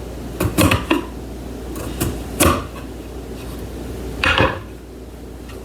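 A few sharp clinks and knocks of dishes and utensils being handled, with a longer scrape about four seconds in.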